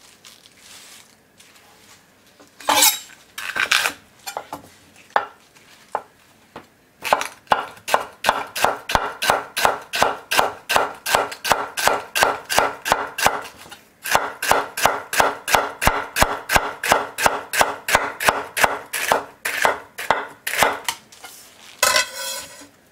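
Kitchen knife slicing a celery stalk thinly on an end-grain wooden cutting board: a few separate cuts at first, then a long even run of crisp chops, about four a second, with one short pause about halfway.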